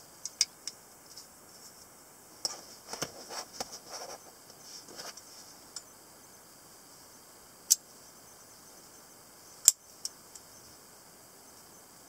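Sharp metallic clicks and clacks of butterfly knives being handled, their handles and latches knocking together. A short rattle of clicks comes a few seconds in, then two single loud clicks about two seconds apart.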